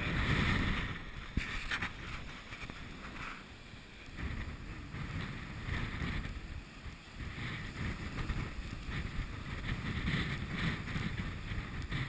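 Strong wind buffeting the microphone in uneven gusts, with surf breaking on the shore.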